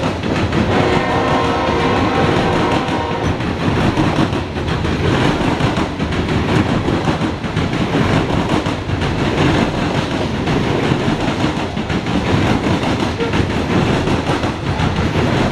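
Open-top coal cars of a coal train rolling past close by: a steady, loud rumble of steel wheels on the rails with repeated clickety-clack clatter from the wheels and joints.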